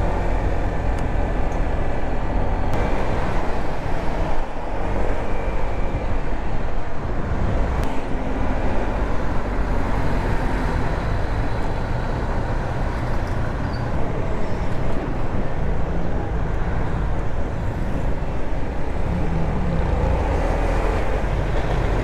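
Motorbike engine running steadily under way, heard from the rider's seat along with wind rush and road noise, with a small dip in the engine note about four and a half seconds in and slight changes of pitch near the end.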